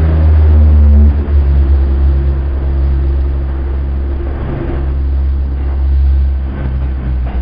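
NYC subway track geometry train passing close by: a loud, deep rumble of wheels on rail. A steady hum of several tones drops away about a second in while the rumble goes on.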